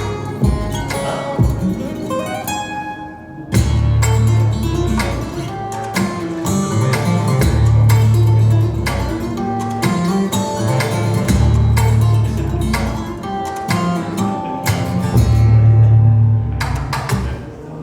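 Recorded music with quick plucked-string notes over deep, sustained bass notes, played back through a high-end hi-fi system: Børresen Acoustics loudspeakers driven by Gryphon Audio electronics.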